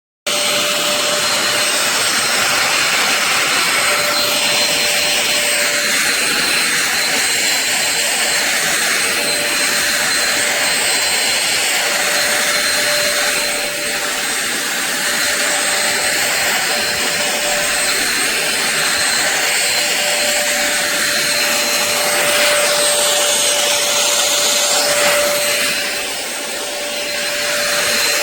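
Akitas V8 cordless stick vacuum cleaner running steadily: a rush of air with a fixed high motor whine, dipping briefly in level twice.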